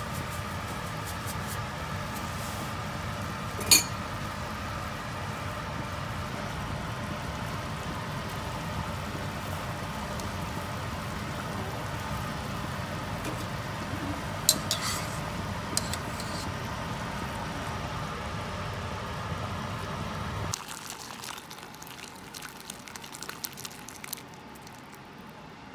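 Steady low rumbling hiss of the gas stove as a pot of oyster and tofu soup cooks, with a sharp clink of a utensil on the steel pot about 4 s in and a few lighter taps around 15 s. About 20 s in the rumble stops, and a few quieter clinks of glass and china follow as tofu is slid from a glass bowl into a ceramic soup bowl.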